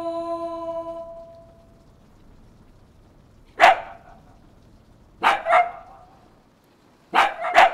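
Dachshund barking: one sharp bark, then two quick pairs of barks.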